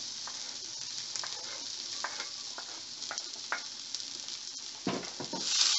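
Chopped spring onions frying in hot olive oil in a frying pan: a steady sizzle with scattered crackles, growing louder near the end.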